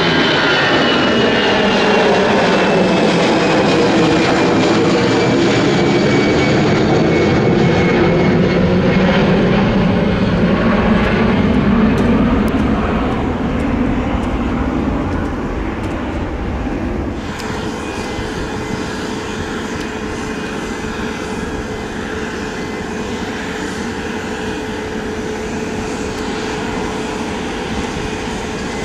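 An Airbus A320neo-family jet's engines at climb power as it passes overhead and recedes, loud, with its whine and hum sliding steadily down in pitch. About 17 seconds in, this cuts off suddenly to quieter, steady airport apron noise with a constant hum.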